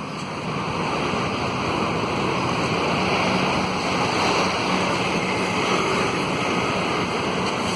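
Steady street traffic noise: a continuous rush with a low engine hum underneath.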